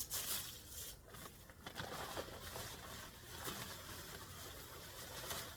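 Dry mulched leaves rustling and crackling as they are emptied from a mower's collection bag into a yard waste bag.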